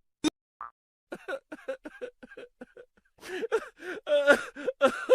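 A comedy sound effect: a click, then rapid, high-pitched giggling laughter. The laughter starts about a second in and grows louder after about three seconds.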